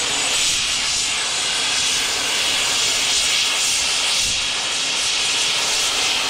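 Steam locomotive venting steam: a loud, steady hiss.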